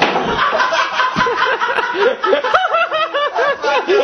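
Hard laughter: a rapid run of 'ha-ha-ha' bursts, about four or five a second, setting in about a second and a half in. Before it there is a noisy clatter with a knock about a second in.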